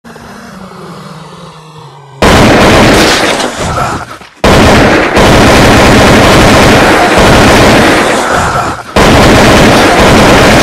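Gunfire sound effect, very loud and distorted, a dense run of shots starting about two seconds in and going on in three long stretches with brief breaks.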